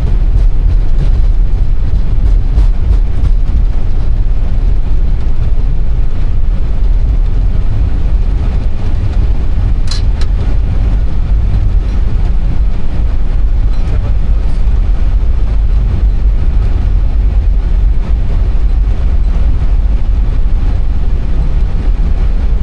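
Airbus A320 on its landing rollout, heard from the cockpit: a steady, loud, low rumble, with one sharp click about ten seconds in.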